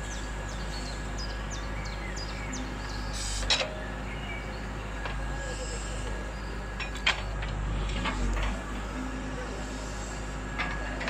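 Electric motors of a Double E E598 RC excavator whirring steadily as it works, with light clicks and three sharp knocks as the machine handles a ball.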